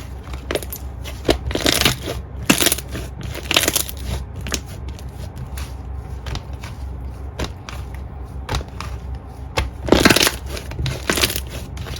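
Slime being pressed and squeezed, giving irregular crackling, crunching pops; a loud burst comes about ten seconds in. A steady low hum runs underneath.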